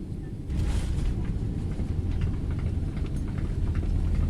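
Boeing 767-400 main landing gear touching down on the runway, heard from inside the cabin: about half a second in, the rumble jumps suddenly to a loud, steady low roar of the wheels rolling, with short rattles of the cabin.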